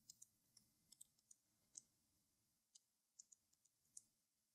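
Faint, irregular clicking of a computer mouse and keyboard, about a dozen short sharp clicks with near silence between them.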